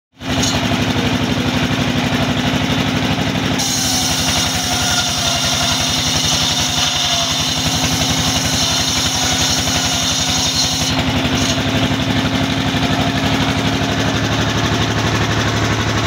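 Engine-driven circular saw bench running steadily. From about four seconds in until about eleven seconds a higher hissing cut sound rises over the engine as a plank is fed through the blade.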